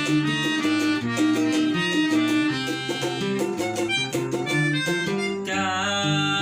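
Instrumental break of a Javanese-language song: a band plays a rhythmic bass and chord pattern under a melody line, with a long held, wavering note starting about five and a half seconds in.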